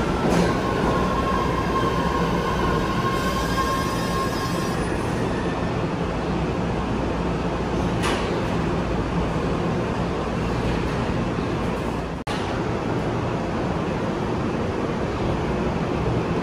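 MBTA Red Line subway train at the platform, a steady rumble and hum of train equipment with a thin, steady high whine for the first few seconds. Two sharp clicks come about 8 and 12 seconds in.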